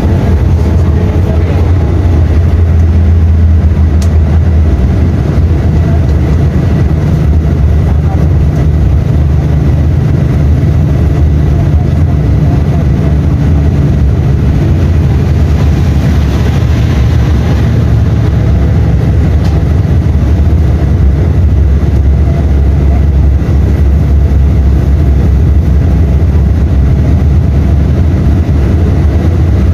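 Mercedes-Benz O-500U bus's OM 926 LA six-cylinder inline diesel engine running as a steady, loud low drone, its pitch shifting a little as the revs change.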